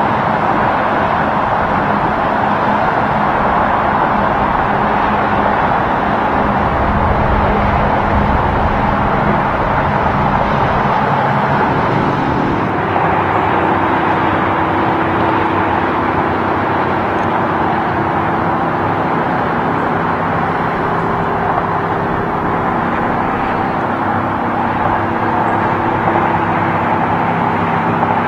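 Steady highway traffic noise from semi trucks and cars: continuous tyre noise with a low engine hum, whose tone shifts about twelve seconds in.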